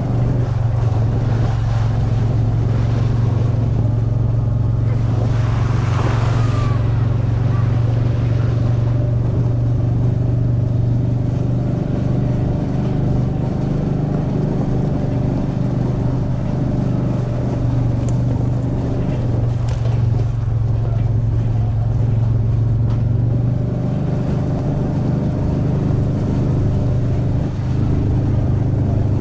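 A utility vehicle's engine running at a steady, even speed while driving, with a brief hiss of noise about six seconds in.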